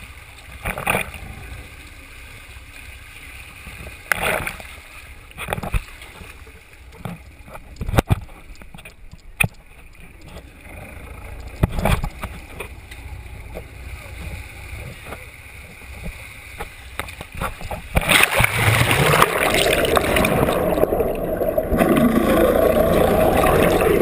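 Sounds aboard a sport-fishing boat at sea: water sloshing against the hull with scattered short knocks. About eighteen seconds in, a much louder, steady rush of water and boat noise sets in.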